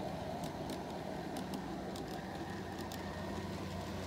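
Accucraft County Donegal railcar model and its coach running on 45 mm gauge garden track: light clicks of the wheels over the rail joints, often in close pairs, over a steady low hum.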